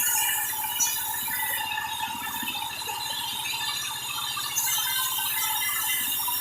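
Handheld electric circular saw running with a steady high whine and some rattle. It is a little quieter from about two seconds in until near the end.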